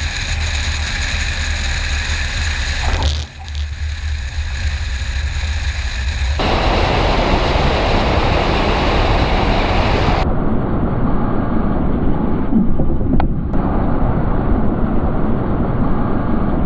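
Small single-engine propeller airplane in flight: steady engine drone and airflow rush, with the character of the sound changing abruptly about three, six and ten seconds in as the recording switches between cameras.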